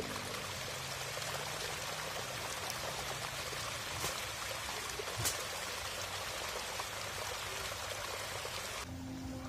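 Water pouring steadily out of a pipe outlet, an even rushing splash. Background music comes back in near the end.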